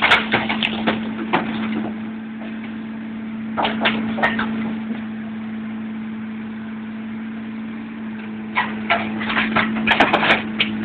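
A steady machine hum with one held low tone, under three bursts of rapid clattering knocks and cracks: one at the start, one near the middle and one near the end.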